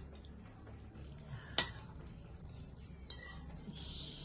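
Metal spoon and fork stirring instant noodles and broth in a ceramic bowl, with one sharp clink of metal against the bowl about a second and a half in and a short scrape near the end.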